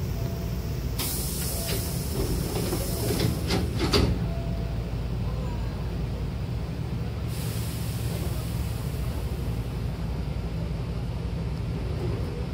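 Hankyu train's sliding passenger doors closing: a hiss of air starts about a second in, and a few clunks near four seconds in as the doors meet and shut. A second burst of air hiss follows a few seconds later, over the steady low hum of the stopped train.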